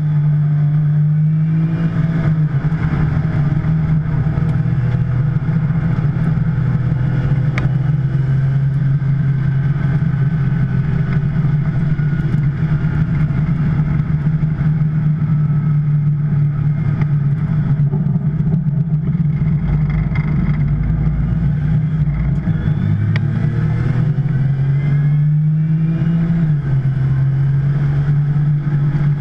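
Porsche 911 Turbo's twin-turbo flat-six heard from inside the car, running hard at speed on track. The engine note holds mostly level, climbs under acceleration a few seconds before the end, then drops back with a gear change.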